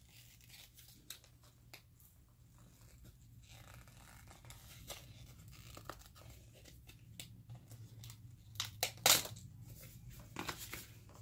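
Retail packaging of a microSD card being torn and pulled open by hand: scattered crinkles, rips and clicks, with the loudest tear about nine seconds in.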